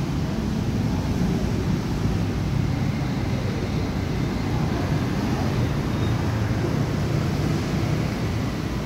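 A steady low rumble of background noise with no distinct events.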